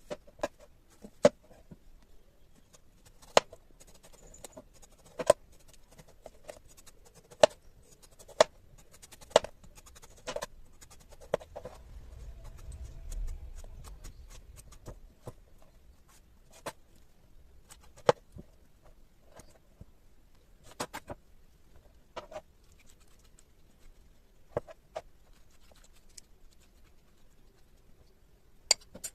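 Knife cutting through a crisp, juicy ananas melon, making sharp crunchy cracks one at a time, every second or two, with a low rumble about halfway through.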